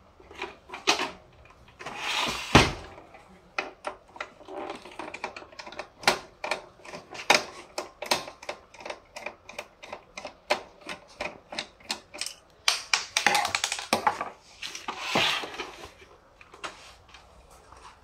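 Irregular clicks, taps and knocks of plastic parts and tools being handled as an HP LaserJet 1020 printer is taken apart, with a few short scraping sounds.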